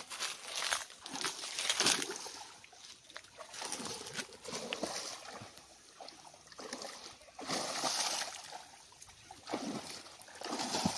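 Shallow pond water splashing and sloshing around two people wading and hauling a mesh seine net, coming in irregular surges every two to three seconds.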